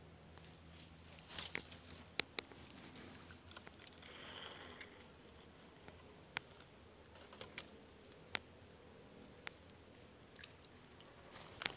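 Faint handling noise from fishing tackle: a quick cluster of sharp clicks about a second in, a brief soft hiss, then single light ticks every second or so.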